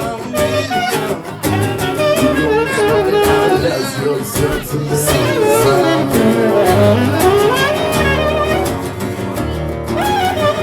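Music playing: a band with a steady bass line under a melodic lead that glides up and down in pitch.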